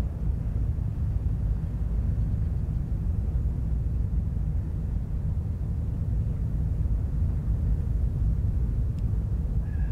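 Wind buffeting the microphone outdoors: a steady, low rumble that flutters without letting up.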